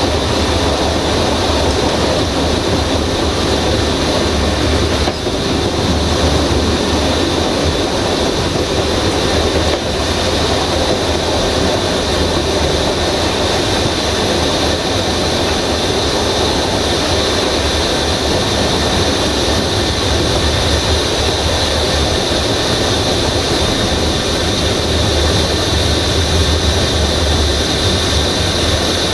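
Passenger train running steadily along the line, heard from on board: a continuous rumble of wheels on rails with a thin, steady high squeal above it.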